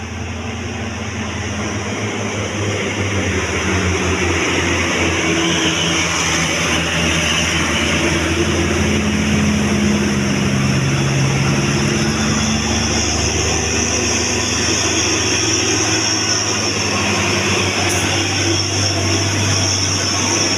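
Large tour bus engine running close by, getting louder over the first few seconds and then holding steady, with a steady hiss over it.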